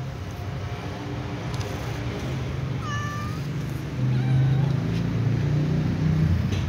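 Domestic cats meowing to be fed, with a short, high meow about three seconds in. A low steady rumble grows louder from about four seconds in.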